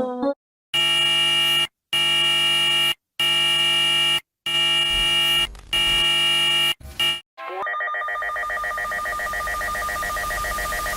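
Emergency alert broadcast tones: five long electronic beeps of about a second each, separated by short silences. At about seven and a half seconds a steady, rapidly pulsing alert tone takes over.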